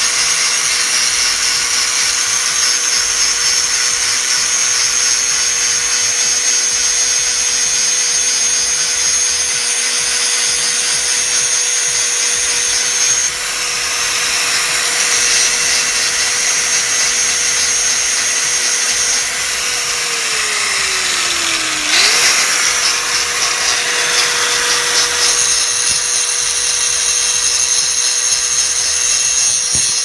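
Angle grinder cutting through the steel shackle of a Master Lock combination padlock: a steady motor whine over a harsh grinding hiss. About two-thirds of the way through, the whine sinks in pitch as the disc bogs down under load, then snaps back up.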